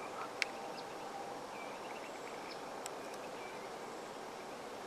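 Quiet outdoor field ambience: a steady hiss with a few faint, short high chirps and a couple of small clicks.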